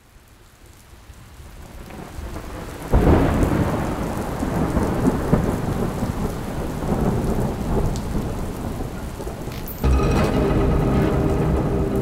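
Heavy rain fading in from silence, with a sudden crack of thunder about three seconds in followed by a steady downpour and rumbling. The storm swells again suddenly near the end, with some steady tones coming in.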